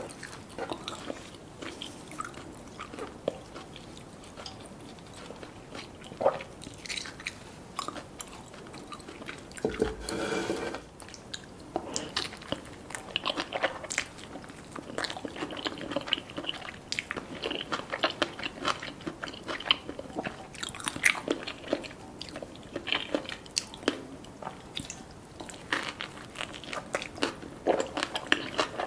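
Close-miked eating: crisp crunching bites and chewing, most likely of black rice cones filled with spicy chopped scallop, avocado and salmon sashimi. The sound is a run of irregular sharp crunches and clicks.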